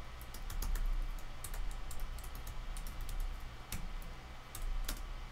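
Typing on a computer keyboard: irregular, quick key clicks, with a faint low hum underneath.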